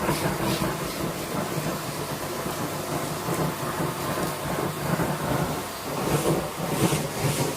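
Vacuum cleaner running with a steady rushing noise that rises and falls unevenly, growing louder about six seconds in.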